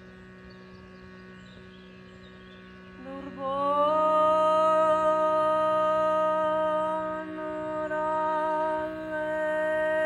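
Shruti box drone sounding steadily; about three seconds in, a woman's voice comes in, sliding up into one long wordless sung note held over the drone, with a brief dip near the middle.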